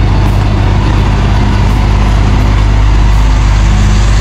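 Heavy tarpaulin-covered cargo truck driving past close by, its engine and tyres a loud, steady low noise.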